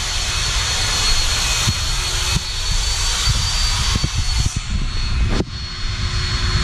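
An engine running steadily under a loud rumbling hiss, with a thin steady high whine on top. A sharp click about five and a half seconds in, after which the sound goes on a little quieter and duller.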